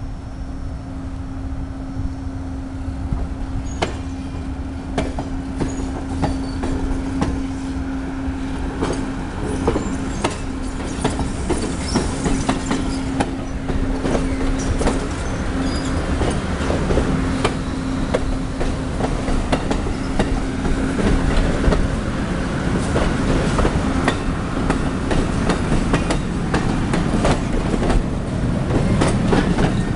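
Amtrak Silver Star passenger cars rolling past as the train backs up, their steel wheels clicking over rail joints more and more densely and growing louder toward the end. A steady low hum runs underneath for most of the first two-thirds.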